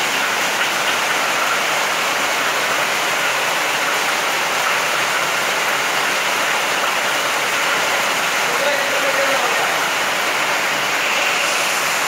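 Heavy rain falling steadily, a constant even hiss of water pouring down and splashing into standing water on the ground.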